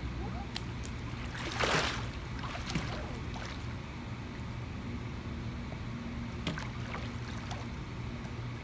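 A splash about one and a half seconds in as a swimmer ducks under into a handstand in a pool, then a few small splashes and water lapping over a steady low hum.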